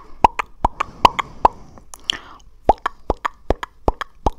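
ASMR mouth sounds: a rapid, irregular run of tongue clicks and mouth pops, about four to five a second, with a short breathy stretch about two seconds in.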